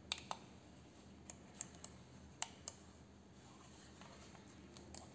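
Light plastic clicks and taps from a Genius Cam Mouse, a wired USB mouse, being handled and pressed in gloved hands. The clicks come irregularly: a pair just after the start, several in the middle and a couple near the end.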